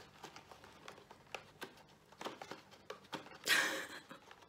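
Fingers scratching and prying at the cardboard door of a Kinder advent calendar: small clicks and scrapes of card, with a louder rustle about three and a half seconds in as the door works loose.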